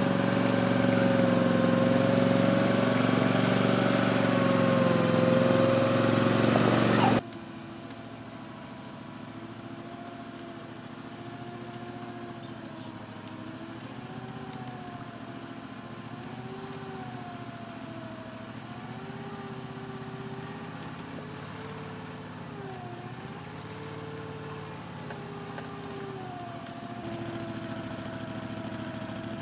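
Engine of a home-built amphibious wheeled boat running as the boat drives on its wheels, loud and steady at first, then dropping sharply to a quieter level about seven seconds in, where its pitch wavers up and down.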